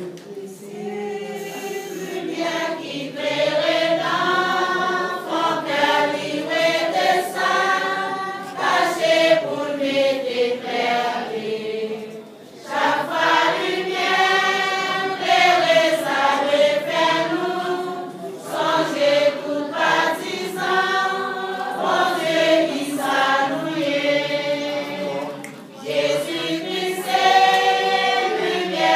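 A congregation singing a hymn together in long phrases, pausing briefly twice.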